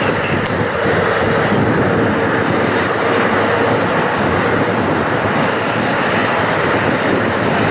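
Tail-mounted turbofan engines of a regional jet running close by at taxi thrust: a steady, dense rush with a faint steady whine in the first few seconds.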